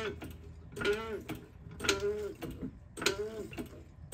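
Jack being pumped to raise a Honda CR-V's lower control arm under the strut, with a squeak on each stroke that rises and falls in pitch. Four squeaks, about one a second.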